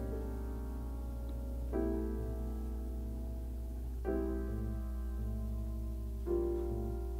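Background music: slow, soft piano chords, a new chord struck about every two seconds.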